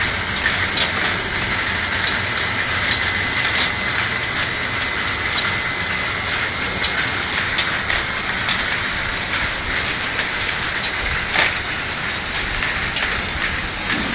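External vial washing machine for 50 ml vials running: a steady loud hiss of its spray jets, with a faint steady whine and scattered light clicks throughout.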